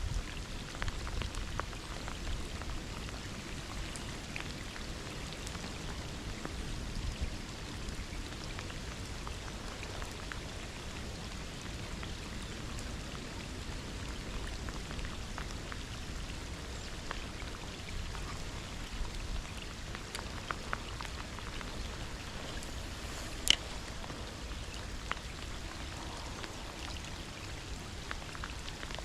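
Steady rain falling, heard as an even patter of many small drop ticks. One sharper click stands out about two-thirds of the way through.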